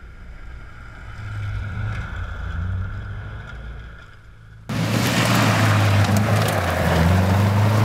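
Subaru Impreza rally car's flat-four engine running hard as the car comes through a gravel corner, the engine note swelling and then fading as it passes. About 4.7 s in the sound jumps to a much closer, louder pass, the engine at high revs with gravel spraying and rattling from the tyres.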